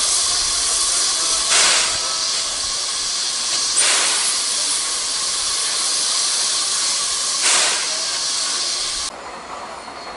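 Steam locomotive hissing steam loudly and steadily, with three stronger bursts along the way. The hiss cuts off suddenly near the end, leaving a much quieter background.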